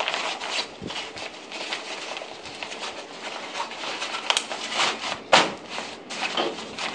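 Stiff pack fabric crinkling and rustling as the top of a canyoneering pack is folded and pressed down by hand. Two sharp clicks come through it, the louder about five seconds in.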